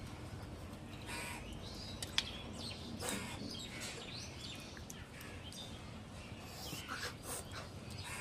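Crows cawing now and then in the background, several short harsh calls, over soft sounds of eating by hand; a single sharp click about two seconds in.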